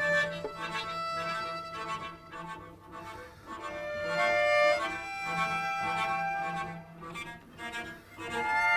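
String quintet of two violins, viola, cello and double bass playing a contemporary chamber piece, with long bowed notes that swell and fade and grow louder near the end.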